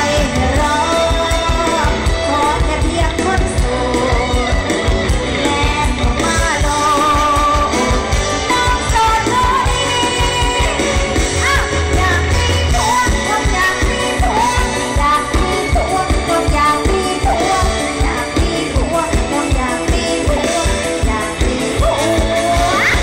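Live mor lam band music played loud through a PA, with a woman singing into a microphone over a steady drum beat.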